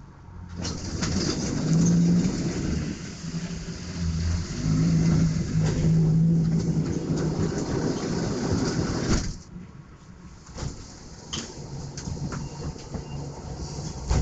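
Onboard machinery of a standing tram running loudly with a steady low hum. It starts about half a second in and cuts off abruptly about nine seconds in, leaving a quieter cabin rumble.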